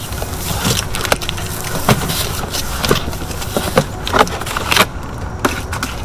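Cardboard shipping box being cut open with a box cutter and its flaps pulled back: scattered crackles, scrapes and knocks of stiff cardboard over a steady low rumble.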